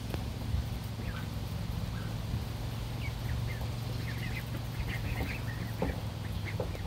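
Ducklings peeping in short, high chirps, scattered and busiest a few seconds in, over a steady low hum.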